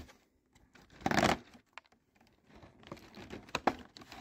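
Cardboard advent-calendar door torn open in one short rip about a second in, then scratching and crinkling as a foil trading-card booster pack is slid out of its slot.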